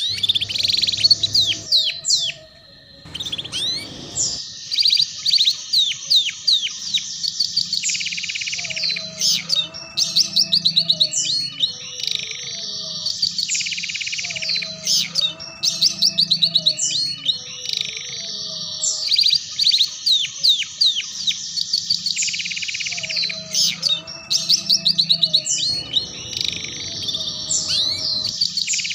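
Canary singing a long, fast song of chattering trills and high whistles, the 'ngeriwik' style played as a master recording to teach young canaries to sing. The song drops away briefly about three seconds in, then carries on.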